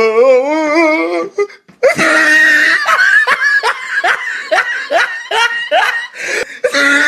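A person laughing hard: a rapid string of rising "ha"s, about three a second, starting about two seconds in. Before it, a wavering voice is held for about a second.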